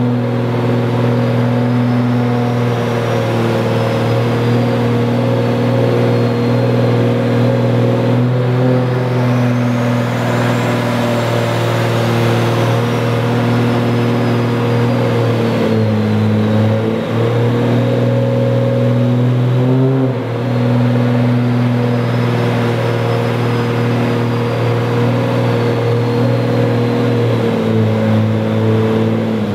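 Turbocharged 1.5JZ inline-six (a 2JZ short block with a built head) with a Garrett GTX4088R turbo, running on a dyno and held at a steady raised speed well above idle. Its pitch dips briefly three times: around 16 and 20 seconds in and again near the end. A thin high whistle rises and falls twice over it.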